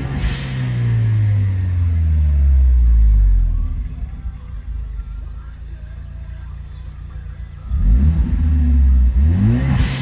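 Car engine revving. Its pitch falls back to a low steady run over the first few seconds, then it is blipped up again sharply about eight seconds in, rising and falling twice. A faint steady high tone sits over it, recorded to show a whining noise.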